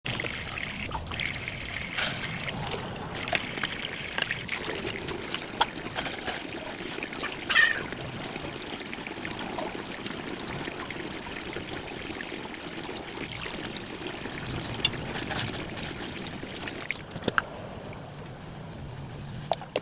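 Water trickling and sloshing with scattered light clicks and knocks of kitchen handling.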